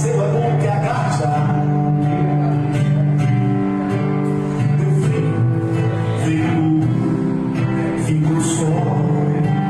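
Live band music at a soundcheck: guitar-led song played steadily on sustained chords, with occasional bright cymbal-like hits.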